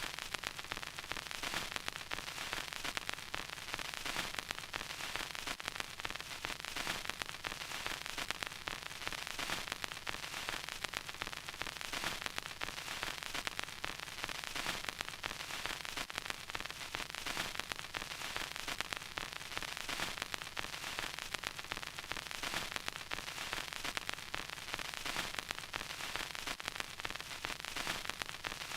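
Vinyl record crackle: steady surface hiss with dense, irregular small pops and clicks, with no music playing.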